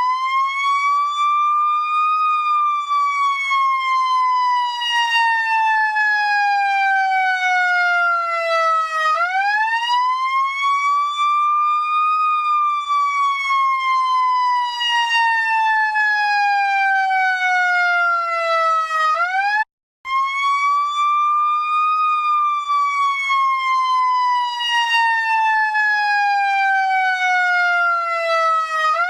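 E2QB siren sounding a slow wail: the pitch rises for about two seconds, then falls slowly for about seven, and the cycle repeats about every ten seconds. It cuts out for a split second about two-thirds of the way through.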